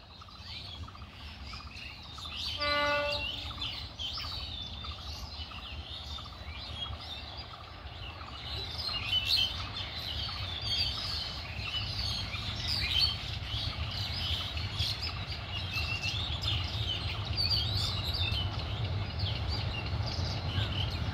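Small birds chirping throughout, with the low rumble of an approaching diesel locomotive growing steadily louder in the second half. A short steady tone sounds once, just under three seconds in.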